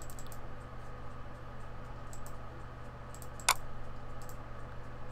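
Computer mouse clicking: faint small clicks and one sharper click about three and a half seconds in, over a steady low hum.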